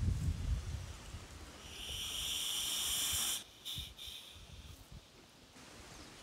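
A hiss lasting about a second and a half that cuts off suddenly, after wind buffeting the microphone at the start.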